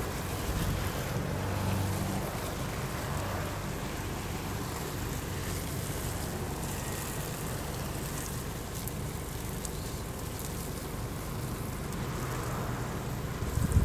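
Water spraying from a garden hose onto leafy plants, a steady hiss and patter, with wind rumbling on the microphone.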